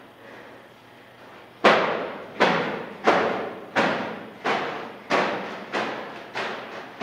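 Heavy trash bags full of clay slammed again and again onto a hard floor: a steady run of about eight dull thuds, one every two-thirds of a second, starting about a second and a half in, each ringing out briefly in the bare room.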